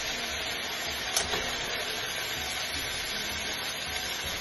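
Diced chicken sizzling steadily in oil in a frying pan, with a single clink of a metal spoon against the pan about a second in.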